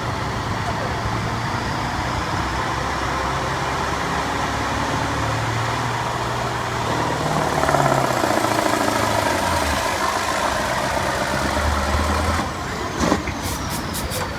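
1989 Mack Superliner's V8 diesel engine working under load on a truck-pull run, growing louder about halfway through and dropping off near the end as the pass is stopped short. The truck is in a gear too fast for the pull.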